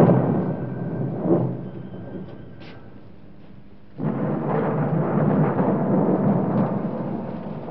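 A loud low rumble that dies away over the first few seconds, then comes back suddenly about four seconds in and keeps going.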